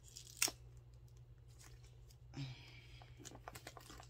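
A new leather handbag and its plastic-wrapped tags handled by hand: one sharp click about half a second in, then a short rustle and a scatter of small crinkling ticks.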